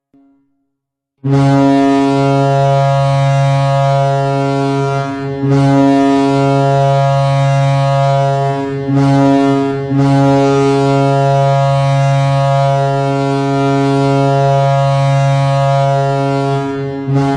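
NHL arena goal horn, a deep ship-style air horn, sounding in long loud blasts after about a second of silence. The blasts last about four seconds, three seconds, under a second and seven seconds, each broken off by a brief gap, and another begins near the end.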